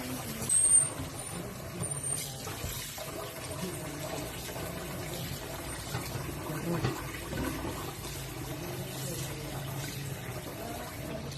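Water running from a tap into a bowl of salted, grated green papaya and carrot, filling it steadily.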